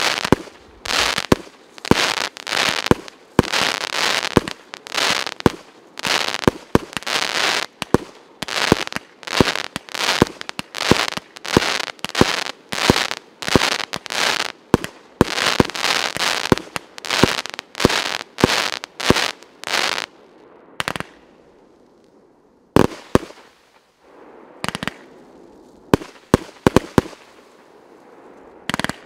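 Piroff 300-shot, 1.2-inch fireworks battery firing shot after shot, about two a second, each a sharp report trailed by crackling. About twenty seconds in, the firing thins to a few scattered bangs over quieter crackle.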